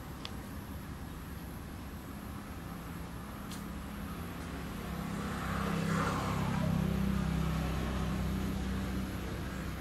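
A motor vehicle's engine going by, a steady low hum that grows louder from about three seconds in, is loudest around the middle, then eases off.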